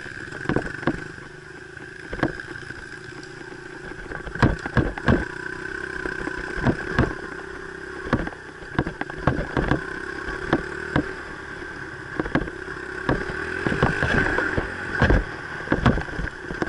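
Dirt bike engine running at a steady pitch while riding a trail, with frequent sharp knocks and rattles.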